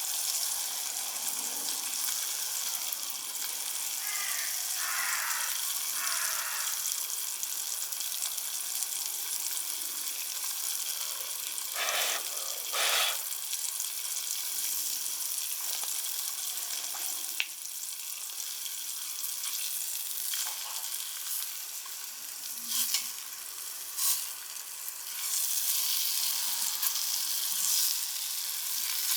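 Wild boar meat sizzling over a wood campfire: a steady hiss with occasional sharp pops.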